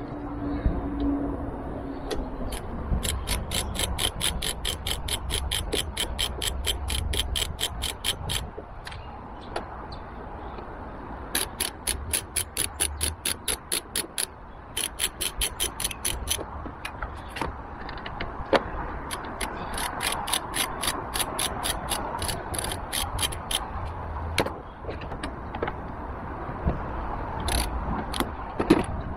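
Half-inch drive socket ratchet with a T25 Torx bit clicking in quick runs of about five clicks a second, in several bursts with pauses between, as Torx screws are wound out.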